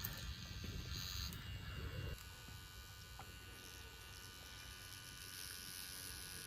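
Electric tattoo machine buzzing steadily while it works the skin.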